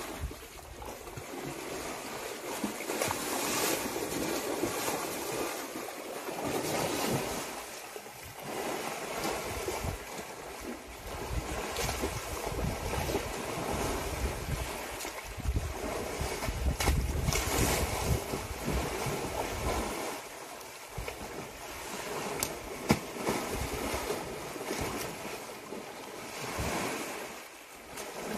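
Asian elephant splashing and wallowing in a muddy pond, water sloshing and surging unevenly. Wind buffets the microphone, heaviest through the middle.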